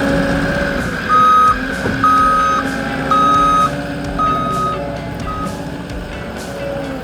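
Skid steer's backup alarm beeping five times, about once a second, the last beep cut short as it stops reversing, over the machine's steady engine.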